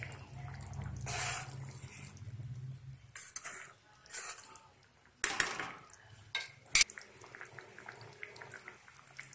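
A spoon stirring jaggery into a thick tamarind curry in a metal pan, scraping and clinking against the pan several times, with a sharp clink about seven seconds in.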